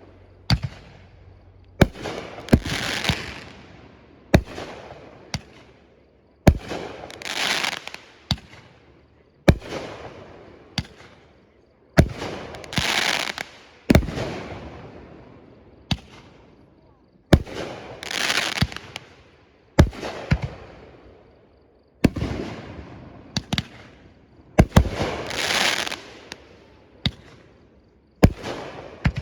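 Fireworks display: a steady run of sharp aerial bangs every second or two, with bigger shell bursts about every five seconds whose noisy, crackling tails swell up and fade away.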